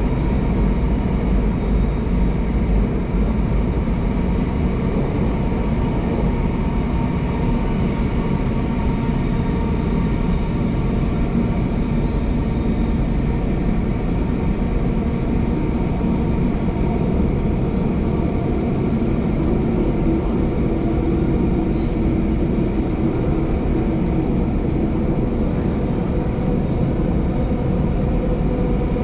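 Singapore MRT Downtown Line train running through a tunnel, heard from inside the carriage: a steady low rumble of wheels on track with a faint constant whine over it.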